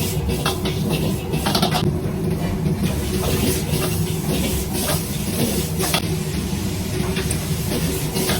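Cooking on a stove: a steady hum and hiss from the pan, with a few short clicks of a utensil against cookware.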